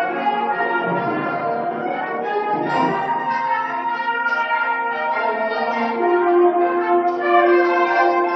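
Concert band of brass and woodwinds playing held chords, with a few low strokes in the first three seconds and the sound swelling in the second half.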